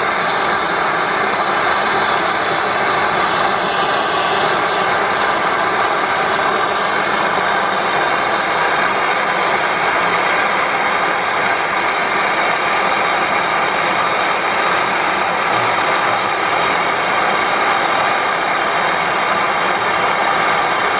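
Handheld gas blowtorch on a screw-on gas cartridge, its flame hissing loudly and steadily without a break.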